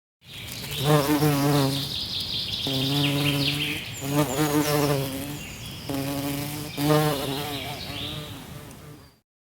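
A flying insect buzzing close by in four bouts of about a second each, its pitch wavering slightly, with small birds chirping and trilling in the background.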